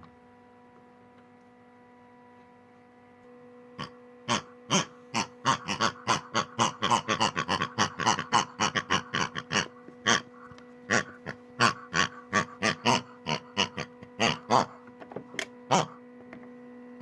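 A steady electrical hum, then from about four seconds in a rapid, irregular string of short pig-like grunts, about three or four a second.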